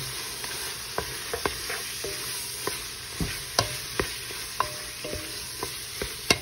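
Browned ground beef sizzling in a large pot while a utensil stirs in chili seasoning mix, scraping and clicking irregularly against the pot. A sharper knock comes just before the end.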